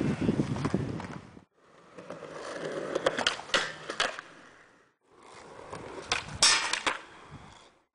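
Skateboard wheels rolling on concrete, with sharp clacks of the board striking the ground, in short clips that cut off twice into brief silence. The loudest clack comes about six seconds in.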